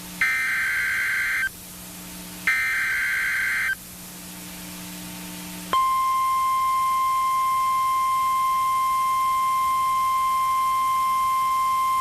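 NOAA Weather Radio SAME alert header: two short, raspy bursts of digital data tones about a second apart. About six seconds in, the steady 1050-hertz weather radio alert tone starts abruptly and holds, the signal that a new watch or warning message follows.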